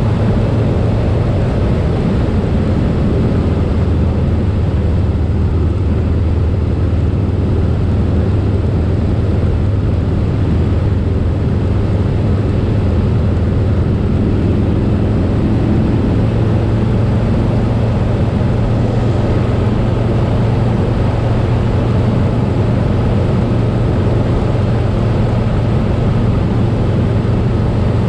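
Harley-Davidson Softail Slim's Milwaukee-Eight V-twin engine running steadily at highway cruising speed, with wind noise rushing over the microphone.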